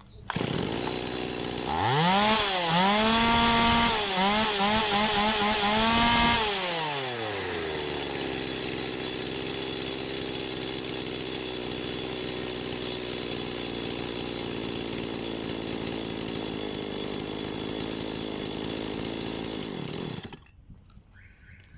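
STIHL MS 180 two-stroke chainsaw engine running, revved up high several times over a few seconds and then dropping back to a steady idle that carries on until it cuts off near the end. This is a test run of a saw repaired for failing to gain revs, and it now reaches high speed.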